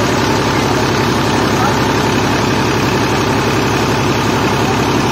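Engine driving a newly bored tubewell's pump, running steadily at an even beat, with water gushing out of the outlet pipe into an earth channel.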